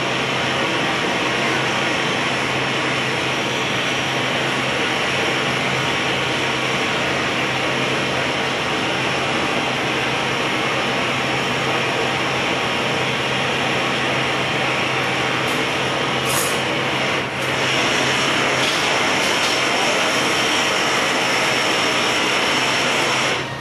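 Steady roar of a glassblowing hot shop's gas-fired glory holes and their burner blowers, with a low hum under it and a brief dip about 17 seconds in.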